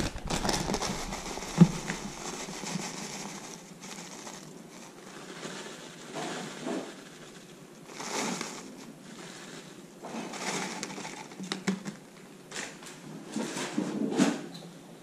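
Kitchen handling noises: a sharp knock about a second and a half in, then several short, noisy bouts of handling and rustling as cooking goes on at the counter.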